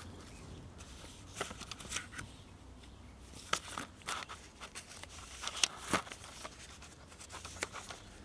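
Handling noise from unpacking a boxed radio: scattered light crinkles, rustles and taps of bubble wrap, a paper manual and a cardboard box.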